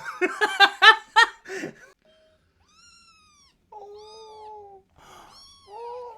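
A kitten meowing over and over: a quick run of loud short cries, then longer drawn-out meows that rise and fall in pitch.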